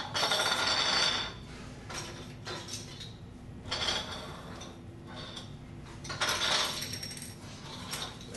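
Tinker Toy pieces clattering as they are handled and sorted by hand on a table. The clatter comes in several bursts, loudest in the first second, with shorter ones around two, four and six to seven seconds in.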